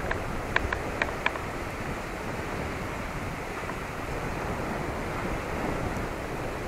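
Steady wind blowing over the microphone with choppy lagoon water, and a few light clicks in the first second or so.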